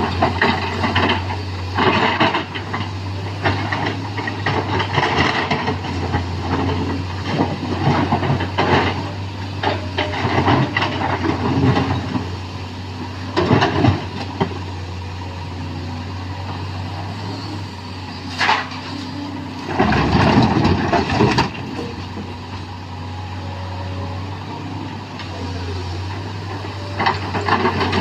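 Sany SY215C excavator's diesel engine running steadily while it loads rock into a dump truck, with irregular clunks and rattles of rock throughout and a louder stretch of rumbling clatter about twenty seconds in.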